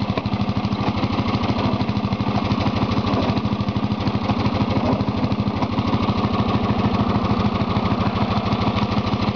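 Lawn tractor engine running at a steady speed with a fast, even beat as the tractor creeps slowly forward.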